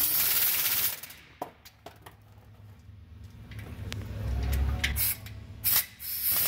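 Power wrench driving transmission bolts home in short bursts of rapid, hissing rattle: one about a second long at the start, a brief one near the end, then another starting just before the end.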